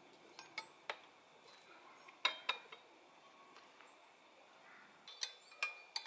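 Light metallic clicks and clinks in small clusters: a few near the start, the loudest pair just past two seconds, and a few more near the end. Aluminium crank arm, chainring and bolts knocking against each other and the frame as the crankset is fitted to the bottom bracket.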